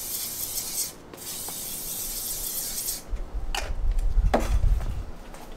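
Aerosol can of Sennelier D'Artigny oil pastel fixative spraying in two long hissing bursts with a short break between them. After about three seconds come low thumps and rumbling.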